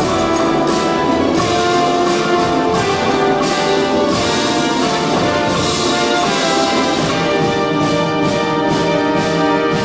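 Symphony orchestra playing a loud passage of held chords with brass prominent, punctuated by percussion strokes, in a live concert hall.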